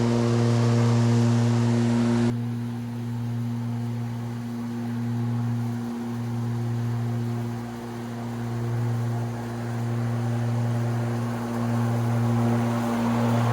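RYOBI RM480EX electric riding lawn mower running with a steady electric-motor hum, dipping briefly in level a few times as it mows.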